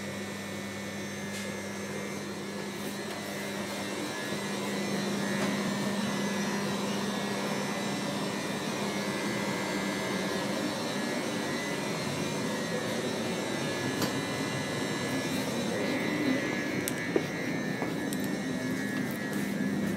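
Steady mechanical hum and rumble inside a Trenitalia train carriage, with a constant low tone, growing a little louder about four seconds in. A brief click comes near the end.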